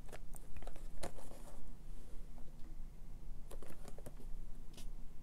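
Cardboard toy box handled and turned over in the hands: scattered light taps, clicks and rustles of fingers on the cardboard.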